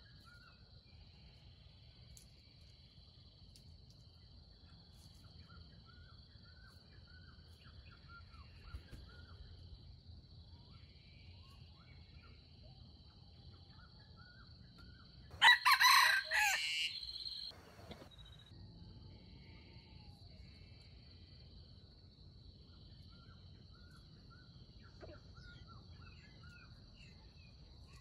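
A junglefowl rooster crows once, a loud call of about two seconds just past halfway. A steady high-pitched whine and faint small-bird chirps run underneath.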